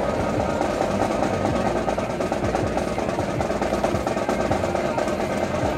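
Music with drums and percussion playing, a dense run of drum strokes.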